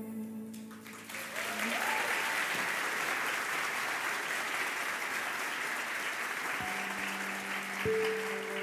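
Theatre audience applauding as a steady clapping haze, while a sustained low cello note dies away in the first two seconds. Near the end, a few struck or plucked instrument notes begin under the applause.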